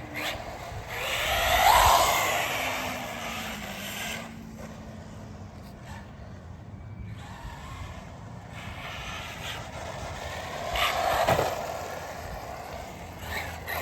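Electric RC car driving on pavement, its motor and tyres swelling and fading as it passes about two seconds in and again about eleven seconds in.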